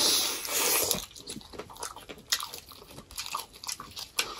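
A crisp, loud crunch as a thick slice of raw cucumber is bitten, lasting about the first second. It is followed by close-miked chewing: small wet crunches and mouth clicks.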